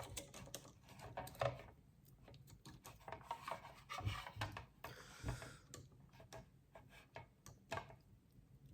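Faint, scattered clicks and taps of hard plastic parts of a snap-together model kit figure being handled and posed, with a brief rubbing sound about five seconds in.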